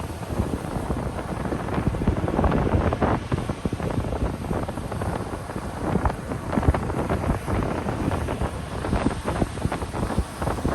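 Ocean surf washing onto a beach in a continuous rush that swells louder about two seconds in and again around six seconds, with wind buffeting the microphone.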